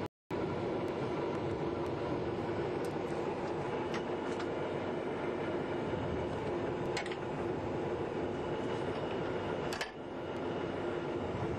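Fuchs armoured vehicle's diesel engine running steadily, with a few short sharp clicks from handling the vehicle's rear equipment; the sound cuts out for a moment at the very start.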